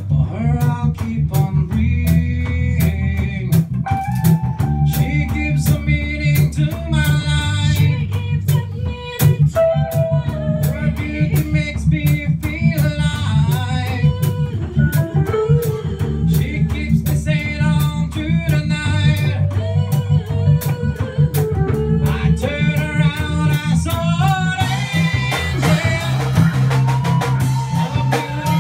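Reggae band song: a singer over electric guitar, bass and drum kit, with a steady beat.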